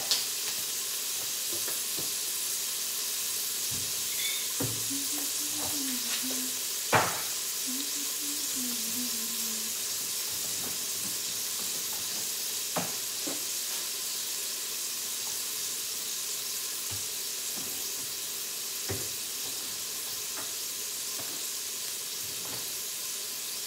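Cooked ground beef sizzling steadily in the stainless steel inner pot of an electric pressure cooker, with a few sharp clicks scattered through.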